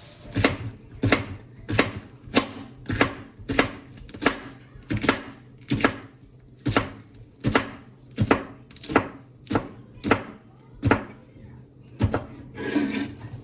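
Kitchen knife chopping okra on a cutting board: a steady run of sharp knocks, about three every two seconds, then a brief scrape near the end.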